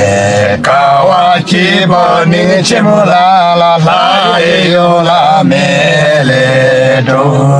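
Men singing a Hyolmo (Yolmo) folk song together in a chant-like style, the melody wavering and sliding over long held low notes.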